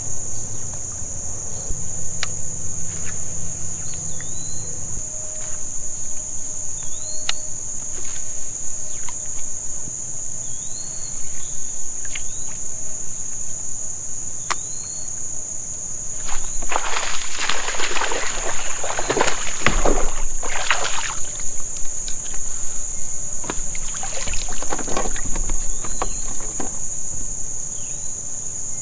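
Steady high-pitched insect chorus with a bird's short chirp repeating every few seconds and a few scattered clicks; past the middle, several seconds of louder rough rushing noise come and go.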